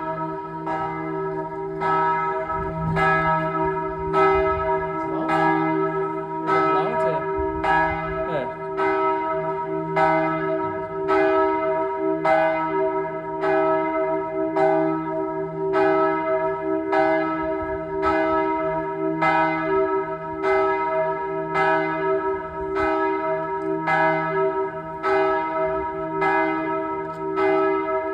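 Church bells ringing together, struck about once a second in a steady, even rhythm, each stroke's tone ringing on into the next.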